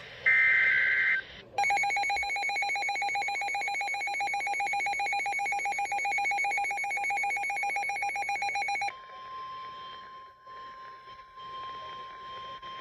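Emergency Alert System tones on a NOAA Weather Radio broadcast: a short screech of SAME data-header code, then the harsh two-tone EAS attention signal for about seven seconds, then a quieter single steady tone from about nine seconds in.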